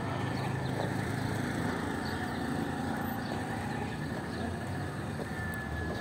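Steady background din of a livestock market with horses, mules and donkeys, with no single call standing out and a steady high-pitched tone above it.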